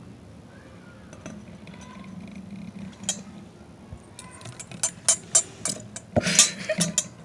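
A run of sharp clicks and taps, irregular and thickening toward the end with a brief rustling burst about six seconds in, over a faint low steady hum.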